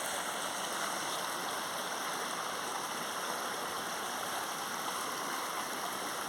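Creek water flowing steadily, an even rushing sound with no breaks.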